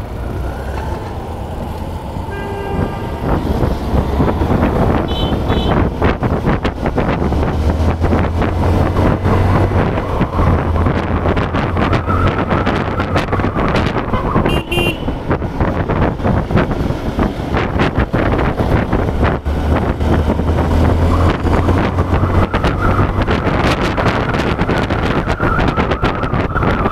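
Hero Hunk motorcycle's single-cylinder engine running as the bike pulls away and rides on at speed, getting louder about three seconds in, with wind noise on the microphone. Short vehicle horn toots sound a few times, around three, five and fifteen seconds in.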